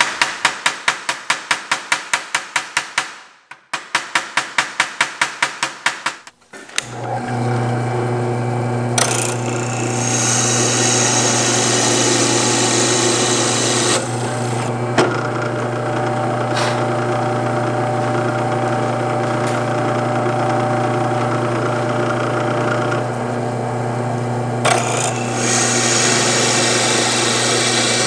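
Rapid, even hammer taps, about five a second, peening over the pins of a knife's brass bolsters, with a short pause in the middle. Then a bench drill press motor starts and runs steadily, its bit cutting into the workpiece with a hissing scrape in two stretches.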